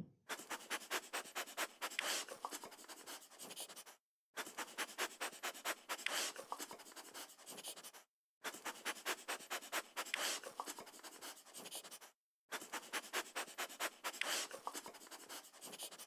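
A dog sniffing: rapid short sniffs, several a second, in about four-second runs broken by three brief silent gaps.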